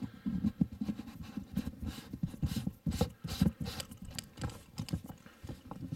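Handling noise of a camera as a wide-angle lens attachment is fitted over its lens: irregular clicks, taps and low knocks close to the microphone.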